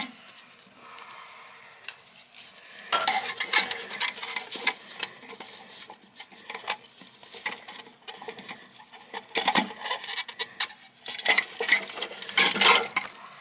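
Irregular clicks, clacks and scraping of the plastic flush valve, its ball chain and gloved hands against the inside of a toilet tank as the flush valve is worked loose.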